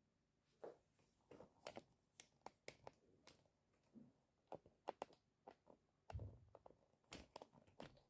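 Faint, irregular clicks and taps, with a dull thump about six seconds in.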